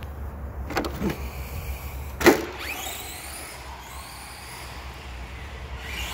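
Arrma Senton Mega RC short-course truck's 12-turn brushed electric motor and drivetrain whining as the truck drives around a dirt track, the pitch falling and rising with the throttle. A sharp knock about two seconds in, with smaller ones before it.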